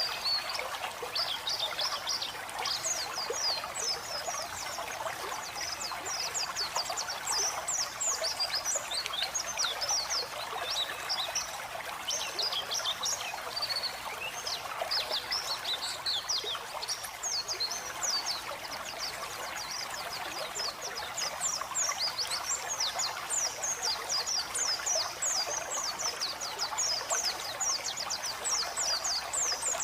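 White-eye (pleci) singing nonstop in rapid strings of short, high, falling chirps, over a steady sound of flowing, trickling water.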